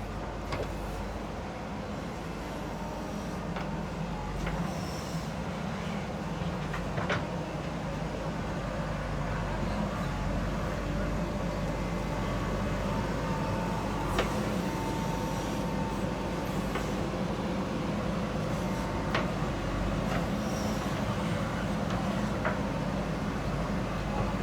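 Diesel engine of a JCB backhoe loader running steadily under work, growing slightly louder, with a few sharp metallic clanks scattered through it.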